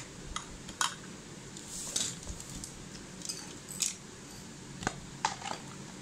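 Light, scattered metallic clicks and clinks of small metal parts being handled, about eight separate ticks spread irregularly over a faint steady hiss.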